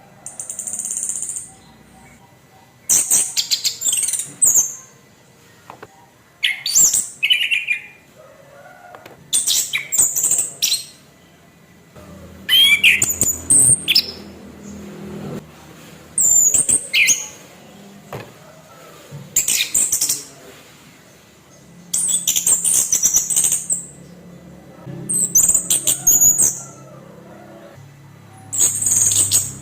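Orange-headed thrush singing harsh, rough phrases of one to two seconds, repeated roughly every three seconds.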